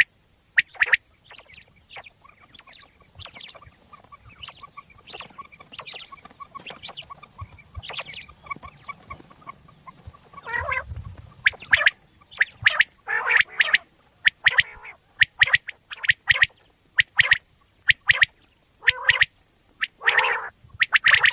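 Common quail calling: short, sharp notes repeated in quick groups. From about two to ten seconds in the calling is softer and denser, then loud calls resume.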